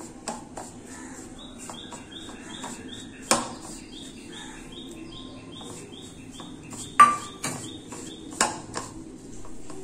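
Hands mixing crumbly flour and milk-powder dough in a plastic bowl, with a few sharp knocks, the loudest about seven seconds in. A bird chirps in the background in two runs of quick, evenly spaced chirps.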